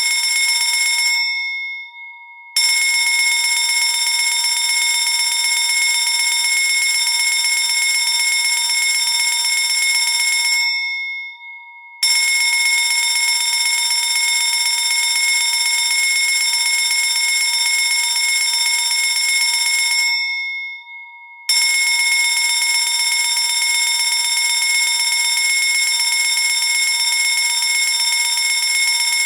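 Electric fire alarm bell ringing loudly and continuously. It rings for about eight seconds at a time and stops three times for about a second and a half, the bell ringing out briefly at each stop.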